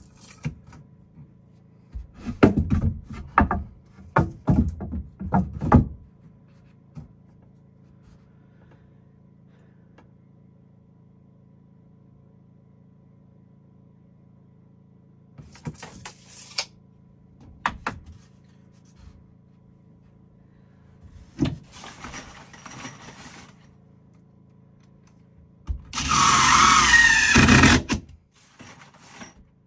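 Woodworking sounds: a run of knocks and thuds, a few scattered shorter clatters, then a power tool runs for about two seconds near the end, its pitch wavering. A low steady hum runs underneath.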